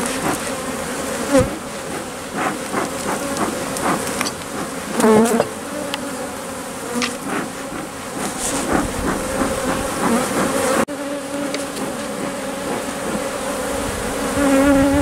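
Honeybees buzzing in a dense, steady hum around an opened hive, with a few short knocks and clicks as the wooden frames are handled.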